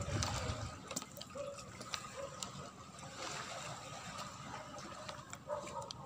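Faint water trickling in a plastic tub of live saltwater fish, with scattered small ticks.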